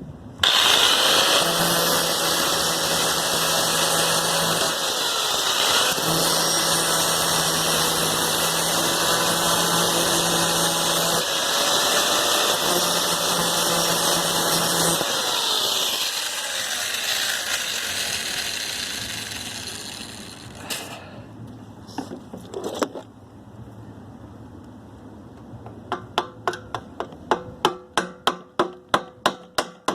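A handheld power tool running hard in three long runs, winding down in pitch at the end of each, then fading out. Near the end comes a quick run of sharp clicks, about four a second.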